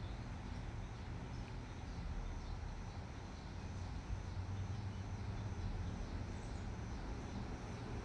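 Steady low background hum with faint, regularly repeating high chirps, a few each second.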